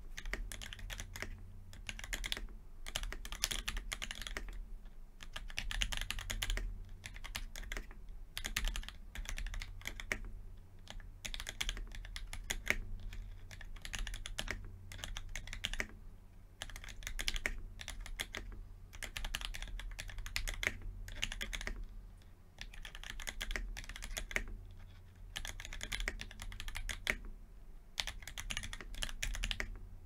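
Typing on a Novelkeys NK65 Entry Edition mechanical keyboard: fast runs of key clacks lasting a second or two, broken by short pauses.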